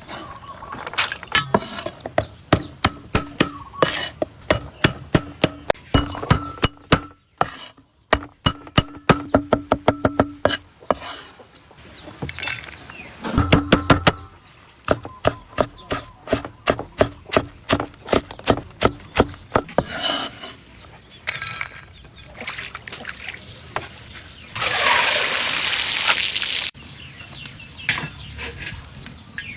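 A kitchen utensil tapping quickly and rhythmically in runs of several seconds, a few sharp clicks a second, during egg preparation. Near the end comes a hissing burst of about two seconds.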